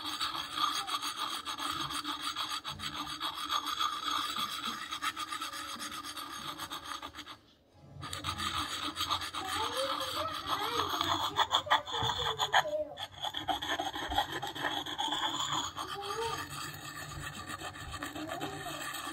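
Steel axe edge being sharpened by hand on the coarse side of a Lansky Puck, a round two-sided sharpening stone: a continuous gritty scraping of quick, short strokes, broken by a pause of under a second about seven seconds in.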